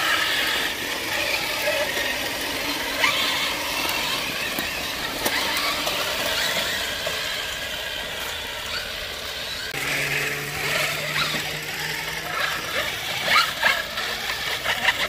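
Electric motors and gears of RC trail trucks whining as they crawl over the trail. A low steady hum joins for about a second and a half roughly two-thirds of the way through, and there are a few knocks near the end.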